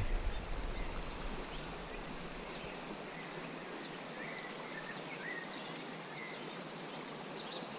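River water rushing steadily, with a few faint, short bird chirps scattered through it.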